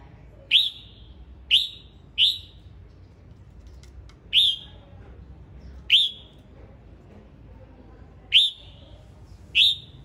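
Male red-whiskered bulbul calling: seven short, sharp notes at uneven intervals, roughly one every second or two.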